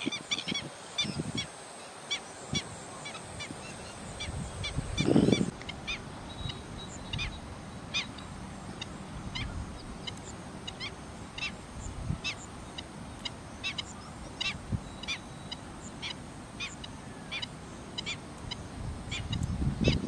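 Black-winged stilts calling: a long series of short, sharp, high yelping notes, several a second at first, then one or two a second after about five seconds. These are the agitated alarm calls of stilts mobbing cormorants near their breeding ground. A brief louder low rush of sound comes about five seconds in.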